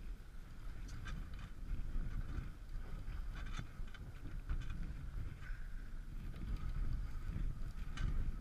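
Wind rumbling on the microphone aboard a fishing boat at sea, with the sea running around the hull and a few sharp clicks or knocks.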